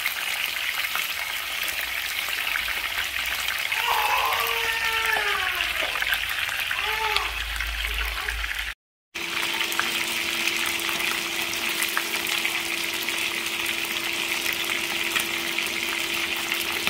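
Pieces of fish frying in hot oil in a pan: a steady sizzle with fine crackling pops. A few brief high calls come in the first half, and after a short break a steady hum sits under the sizzle.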